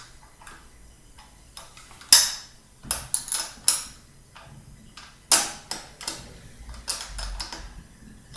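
Metal wrench clinking on a unicycle's wheel screws: irregular clicks and clanks as it is fitted, turned a short way, lifted off and refitted again and again, the stop-and-start of tightening with a plain wrench instead of a ratchet.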